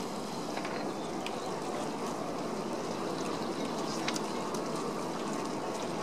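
Steady rushing waterside ambience, water and wind, with a few faint ticks.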